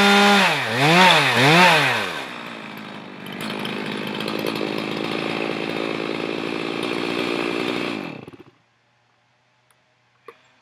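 Stihl MS 391 two-stroke chainsaw running at high revs, then blipped twice (pitch dropping and rising twice) before falling back to a rattling idle. It idles for about five seconds and is then shut off, stopping abruptly. A single small click follows near the end.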